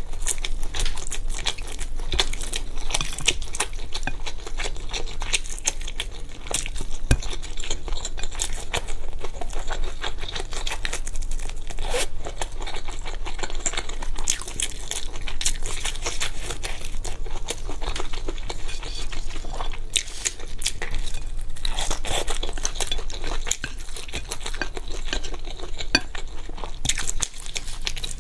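Close-miked chewing of fried skewered food and spicy fire noodles: wet, sticky mouth sounds with many small clicks, and chopsticks tapping against the plate now and then.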